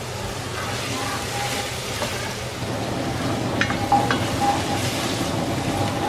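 Chopped onion, garlic and ginger sizzling in hot oil in a pan as they are sautéed and stirred, with two sharp clicks a little after halfway through.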